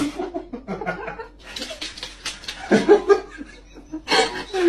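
A person laughing in short, irregular bursts, loudest about three seconds in and near the end.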